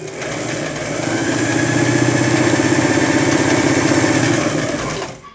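Electric household sewing machine stitching a test seam on freshly rethreaded thread. The motor speeds up over the first second, then runs at a steady, fast stitching rhythm and stops near the end.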